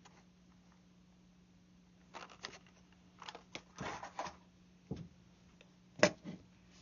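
Handling noises of small hard objects, likely the RJ-45 connectors and tools being picked up: a few light clicks, a brief rattle and rustle, and one sharp click about six seconds in, over a faint steady electrical hum.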